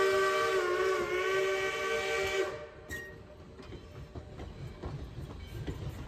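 Steam whistle of Baldwin 0-6-0 steam locomotive No. 58 sounding one long chord-like blast that sags slightly in pitch about a second in and cuts off about two and a half seconds in. Then the passenger coaches roll past with faint clicks of wheels over the rail joints.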